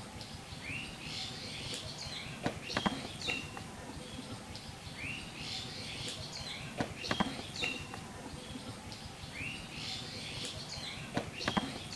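Birds chirping over a steady outdoor background, with the same chirps and rising call repeating about every four seconds, each time with a pair of sharp clicks.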